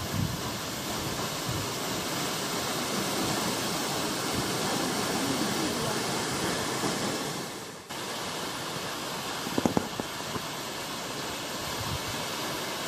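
Large mountain waterfall rushing steadily. The sound dips briefly just before the middle, and a few short low thumps come about ten seconds in.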